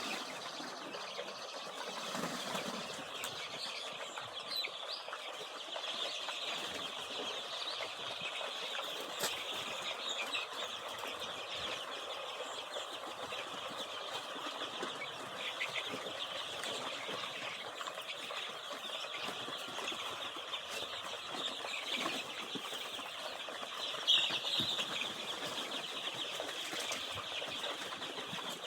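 Many 15-day-old layer chicks peeping together, a dense, steady chorus of high cheeps, with one louder call late on.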